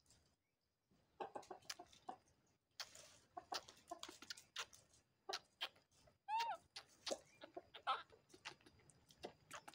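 Faint wet sucking and smacking clicks of two baby monkeys drinking milk from feeding bottles, with one short squeak about six seconds in.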